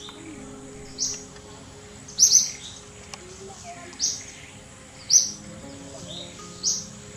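Short, sharp, high-pitched bird chirps, one roughly every second with a quick pair about two seconds in. Soft background music plays underneath.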